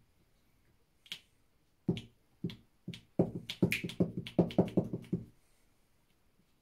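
A glue stick knocked repeatedly against a tabletop: a few separate taps, then a quick run of about six knocks a second that stops about two-thirds of the way through.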